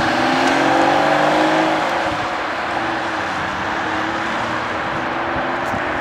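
Porsche 993 Carrera S's air-cooled flat-six accelerating away, its pitch rising over about the first two seconds, then fading into steady traffic and road noise.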